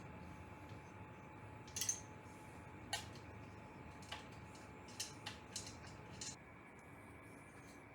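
Scattered light clicks and taps of small hardware being handled during 3D-printer assembly, about seven in all, over a faint steady hum that stops about six seconds in.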